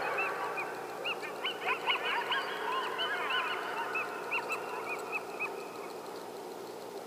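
A pack of coyotes yipping and howling together: a chorus of many short rising-and-falling yips that thins out through the middle and dies away about two-thirds of the way in, leaving a steady hiss.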